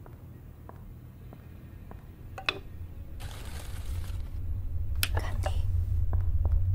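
A low rumbling drone slowly grows louder, with a few sharp clicks of kitchen utensils against a glass bowl and a hiss of about a second near the middle.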